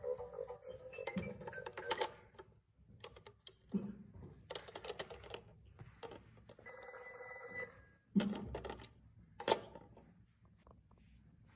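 Electronic ringing and tune from a plastic Peppa Pig toy telephone, with several sharp knocks as its plastic handset is handled and set on the cradle.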